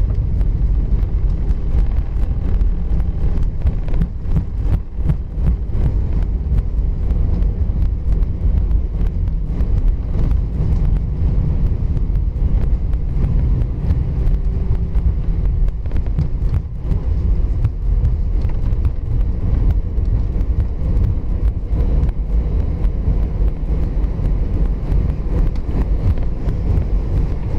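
Airbus A320 cabin noise as the airliner rolls along the runway after landing and turns onto the taxiway: a steady low rumble from the engines and the wheels on the pavement, with frequent small clicks and rattles from the cabin.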